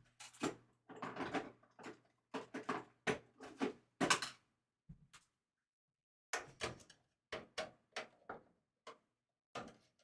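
Irregular knocks, clicks and rattles of computer parts being handled and fitted into a PC case, with a faint low hum under the first half.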